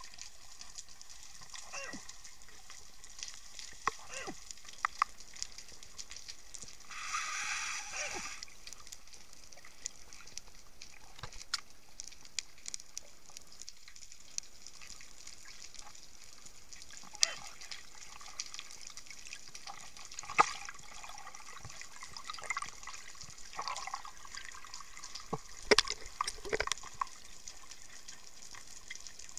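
Underwater sound picked up by a camera in a waterproof housing: a steady hiss with scattered clicks, pops and bubbling. A longer rush of bubbling comes about seven seconds in, and a cluster of louder pops comes near the end.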